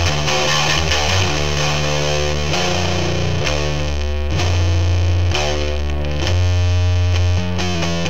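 Instrumental passage of a lo-fi rock song: distorted, effects-laden electric guitar over low bass notes that change about once a second, with no singing.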